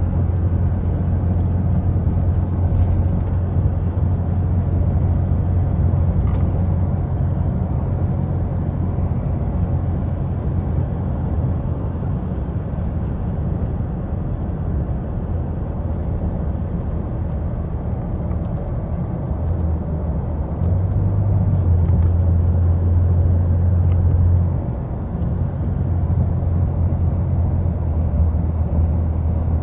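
Steady low rumble of road and engine noise inside a moving car, growing a little louder about two-thirds of the way through.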